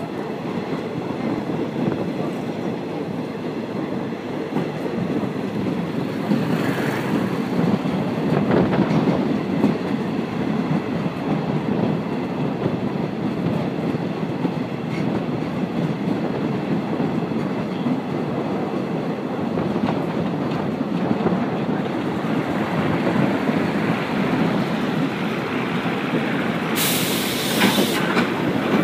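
Passenger train coaches rolling along the track, heard from an open coach window: a steady rumble of wheels on rails. There is a short louder hiss near the end.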